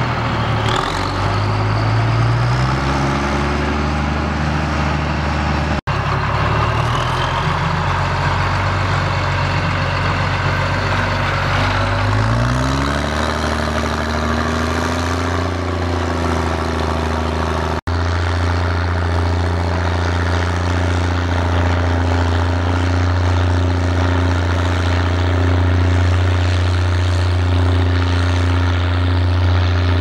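International 1455 XL tractor's six-cylinder diesel pulling a plough through heavy wet clay. It runs hard, with a deep exhaust bark from its replacement exhaust instead of the original turbo whistle. The engine note rises a couple of times as it picks up speed or load, and the sound breaks off for an instant twice.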